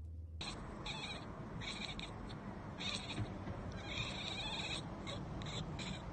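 A cat making a string of short, high-pitched calls with its mouth open, about eight of them at uneven intervals, one drawn out longer near the middle, over a steady outdoor hiss.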